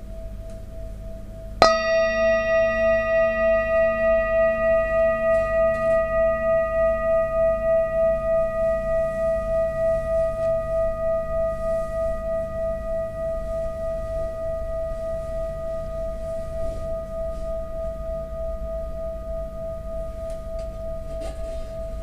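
Metal singing bowl, already ringing, struck once with a wooden mallet about a second and a half in, then ringing on with a slow, even wavering pulse as it gradually fades.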